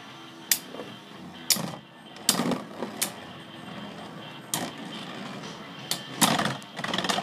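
Two metal-wheeled Beyblade spinning tops whirring in a plastic stadium, clashing with sharp clacks every second or so and in a quick burst of hits near the end.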